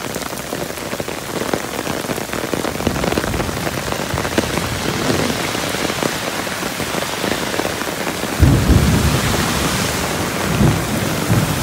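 Heavy rain pouring steadily, pattering on an umbrella overhead and on the wet pavement. A deeper low rumble swells about eight and a half seconds in and briefly again near the end.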